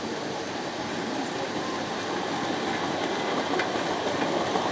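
Tinplate O gauge model trains running on tinplate track: a steady rumbling rattle of metal wheels on rail that grows a little louder as a second train comes closer, with a single click about three and a half seconds in.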